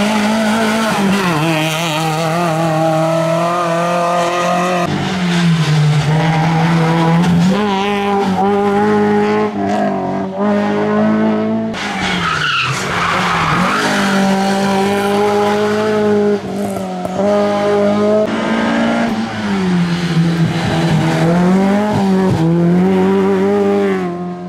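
Hillclimb race car engine running hard at high revs, the note held steady with several brief dips. About halfway through comes a short burst of tyre squeal.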